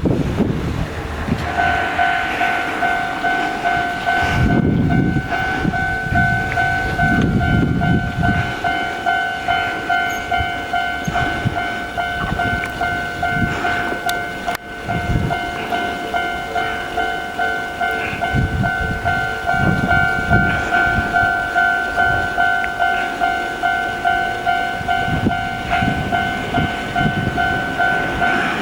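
Japanese railway level-crossing alarm: its standard electronic warning bell starts about a second and a half in and dings evenly, about twice a second. Low rumbling noise comes and goes beneath it.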